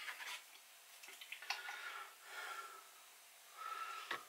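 Faint handling sounds with a few light clicks: a pastry brush being dipped in a bowl of beaten egg and dabbed onto a raw pastry pie lid.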